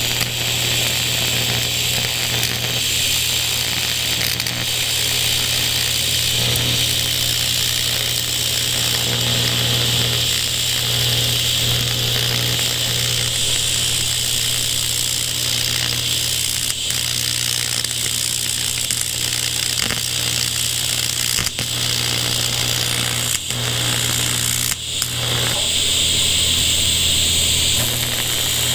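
AC TIG welding arc buzzing steadily while tacking an oil-contaminated aluminum casting, with a low hum under a hissing crackle. The arc dips briefly a few times in the second half.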